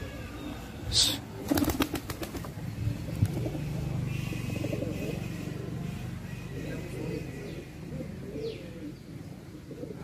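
Fantail pigeons flapping their wings in a quick burst about a second and a half in, followed by low pigeon cooing.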